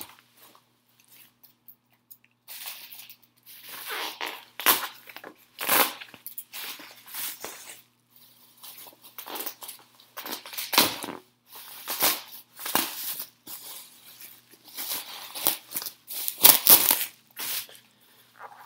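Package wrapping being torn open and crinkled by hand: an irregular run of sharp tearing and crunching noises in clusters, with brief pauses, and a few loud rips.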